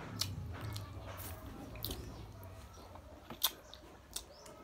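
Close-up chewing and wet mouth noises of a person eating fried chicken and rice by hand, with scattered sharp clicks. The loudest click comes about three and a half seconds in.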